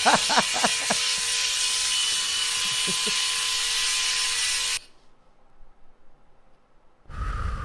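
Electric hair clippers buzzing steadily as they are run over a small monkey's head. A man laughs briefly at the start and again about three seconds in. The buzzing cuts off suddenly about five seconds in, and a low rumbling noise follows near the end.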